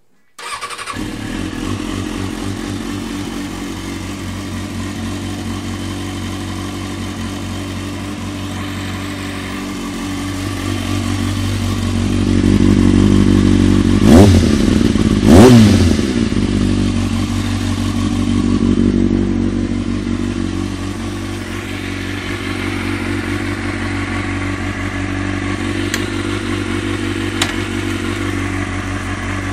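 Kawasaki ZX-6RR sportbike's inline-four engine idling, which comes in suddenly about half a second in. Around the middle the revs climb, then two sharp throttle blips about a second and a half apart send it high before it drops back to idle.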